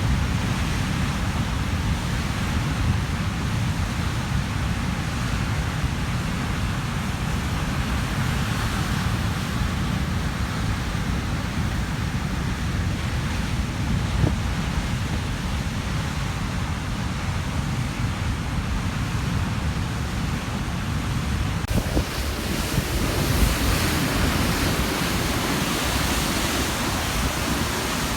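Atlantic surf crashing and churning on a rocky shore at high tide: a continuous rumbling roar of breaking waves, with wind buffeting the microphone. A little over three-quarters of the way through, the sound turns brighter and hissier.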